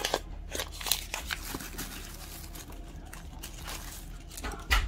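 Small die-cast toy cars being handled: scattered light clicks and rustling, with a sharper knock near the end.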